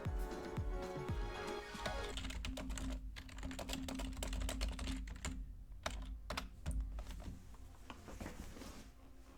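Typing on a computer keyboard: irregular bursts of key clicks that thin out toward the end, over faint background music.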